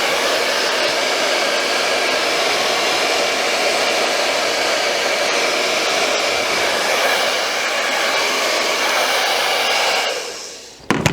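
Handheld blow dryer running steadily on hot air to soften a clear sole-protector film and mold it onto a sneaker sole. About ten seconds in it is switched off and winds down, followed by a sharp click.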